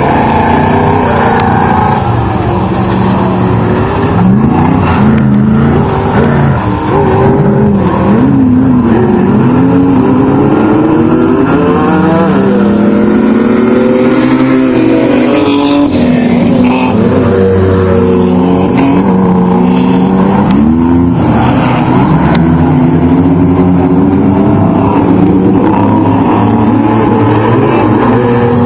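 Several off-road race engines of Trophy Trucks and Class 1 desert race cars running and revving at once, loud, their overlapping pitches rising and falling continuously.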